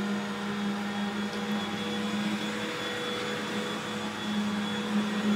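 Vacuum cleaner running steadily in the background: a constant motor hum.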